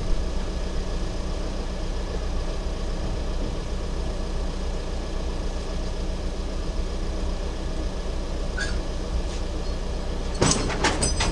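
Heavy engine idling steadily with an even low hum; about ten seconds in, a quick run of metallic clicks and rattles.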